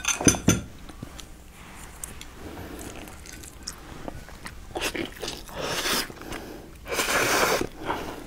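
Close-miked eating sounds: chewing a soft, sauce-soaked food. There are a couple of sharp clicks at the start and louder wet mouth noises about five and seven seconds in.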